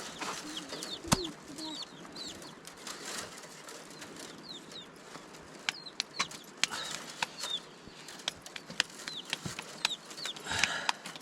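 Birds chirping again and again in short, high, falling calls, with a few sharp clicks, one loud one about a second in.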